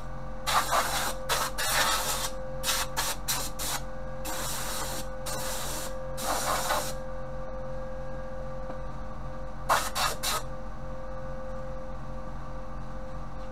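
Compressed-air paint spray gun hissing in a series of short bursts as the trigger is pulled and released, then two brief bursts about ten seconds in. A steady hum runs underneath.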